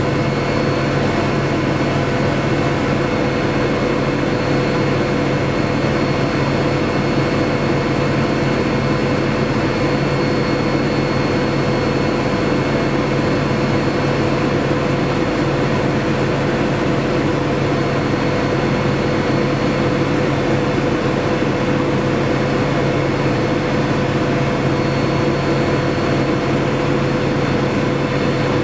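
Helicopter in flight heard from inside the cabin: a steady, loud engine and rotor drone with a constant hum, unchanging throughout.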